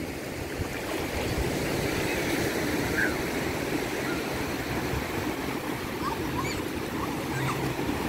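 Small waves washing up onto a gently sloping sandy beach: a steady rush of surf.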